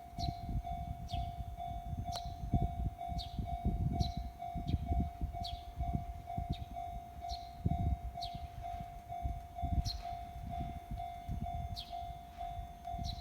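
Japanese level-crossing warning bell ringing steadily at about two strokes a second, over the low rumble of a Kintetsu Minami-Osaka Line train passing the crossing.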